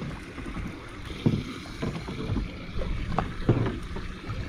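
Wind buffeting the microphone and water washing against a boat's hull, with a few dull knocks, the loudest about a second in and again near three and a half seconds.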